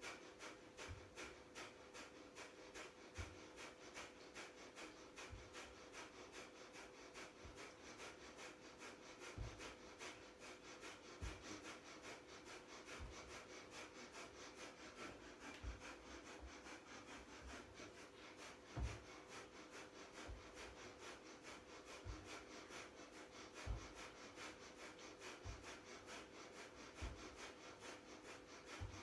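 Breath of fire: rapid, rhythmic, forceful exhalations through the nose at about three a second, kept up steadily. Soft low thumps come every second or two.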